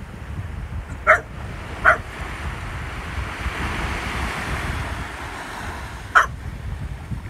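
A Staffordshire bull terrier barking three times: two barks a little under a second apart about a second in, and one more about six seconds in. Underneath, steady wind rumble on the microphone and small waves washing up the beach, swelling about four seconds in.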